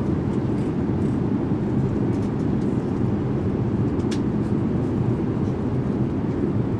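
Steady in-flight cabin noise of an Airbus A350-900: a dense, even rumble of engine and airflow. A light click about four seconds in.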